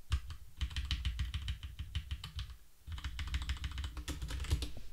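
Typing on a computer keyboard: rapid keystrokes in two quick runs with a short pause about halfway through.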